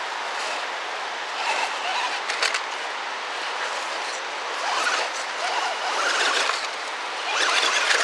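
An Axial SCX10 Deadbolt RC rock crawler's stock brushed motor and gearing whine in three throttle bursts, rising and falling in pitch, as its tyres scrabble over leaves on a rock step. A steady rushing hiss sits behind it throughout.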